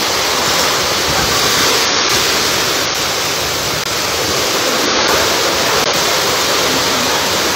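Torrential rain and floodwater running down a street: a steady, loud rush of water.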